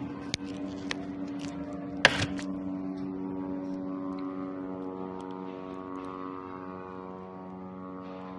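Military drone buzzing overhead with a steady pitched drone hum. One sharp, loud bang about two seconds in, the loudest sound, with a few fainter clicks in the first second.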